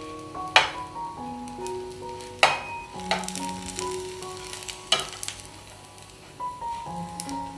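Jalar rolls sizzling in ghee on a flat tawa, with a steel spatula knocking and scraping against the pan a few times as the rolls are turned.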